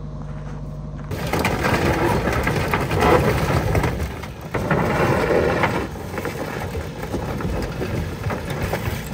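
Liebherr wheel loader's diesel engine working as its bucket shoves and tips a wrecked caravan across gravel, the caravan's body crunching and scraping. About a second in, a steady low engine hum gives way to this rough, louder noise.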